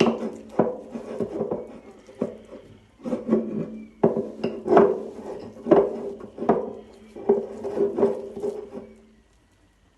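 A spoon stirring and scraping a sticky marshmallow slime mixture in a bowl, with irregular knocks and scrapes over a steady low hum. The stirring stops about nine seconds in.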